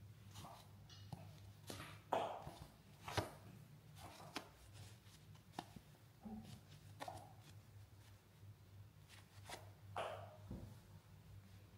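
Macaque mouthing and licking a baby monkey's head: irregular wet smacks and clicks, the loudest about two and three seconds in, over a low steady hum.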